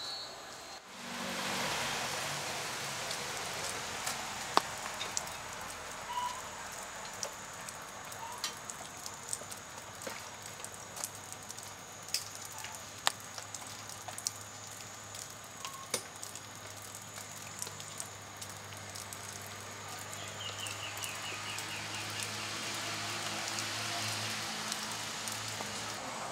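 Steady hiss with scattered sharp clicks and ticks, and a short run of rapid high chirps about twenty seconds in.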